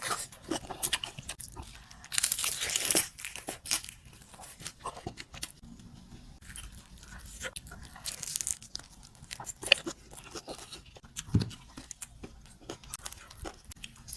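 Whole fried chicken being eaten: crunchy bites, tearing and chewing in irregular bursts, loudest about two to three and a half seconds in and again around eight seconds in.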